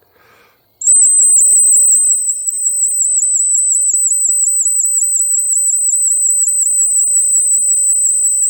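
ACME silent dog whistle blown in one long, loud, high-pitched blast with a rapid, even warble, starting about a second in. It is a recall signal to a dog.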